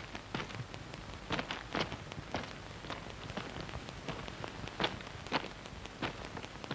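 A steady hiss with scattered, irregular sharp crackles and clicks, about one or two a second.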